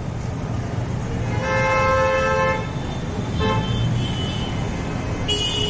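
A vehicle horn sounds one steady blast of about a second, then a few shorter toots, over steady road traffic rumble.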